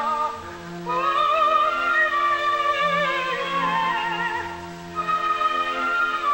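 Operatic soprano singing with orchestral accompaniment, with wide vibrato on the sustained high notes. The voice breaks off briefly twice, about half a second in and near five seconds, between phrases.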